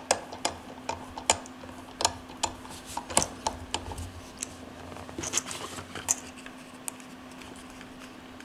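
Irregular small metal clicks and taps from steel setting dies being screwed into a hand press and handled against its base.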